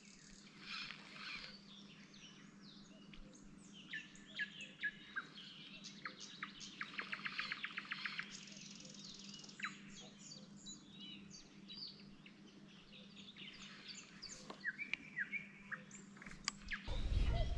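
Small birds chirping and singing in short calls and sweeps, with a fast trill of rapidly repeated notes about seven seconds in. Near the end a low rumbling noise comes in.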